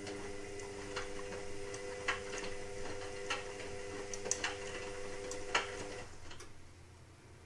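Indesit WIXL143 washing machine clicking: about six irregular sharp clicks over a steady low hum, both stopping about six seconds in. This clicking comes with a fault that stops the machine finishing its cycle, with the door-lock light flashing.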